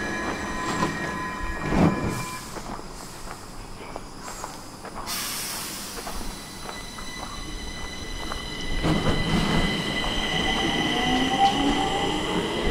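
Stockholm metro train: steady high whine and wheel noise that fade out with a thump about two seconds in, a sudden hiss of air about five seconds in, then electric motors whining and rising in pitch as the train gets moving again.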